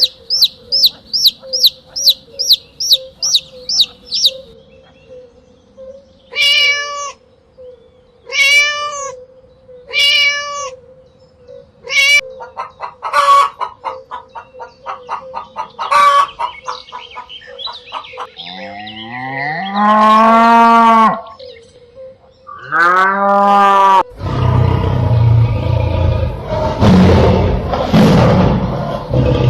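A run of different animal calls one after another: about four seconds of rapid high chirps, then several separate pitched calls about two seconds apart, then two longer calls that rise and fall in pitch, and a rougher, noisier stretch near the end.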